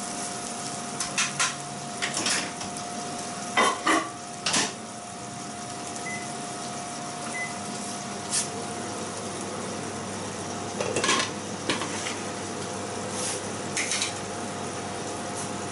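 Prawns frying under a glass lid in a frying pan, a steady sizzle, with a series of sharp clinks and knocks of cookware scattered through it, the loudest a few seconds in.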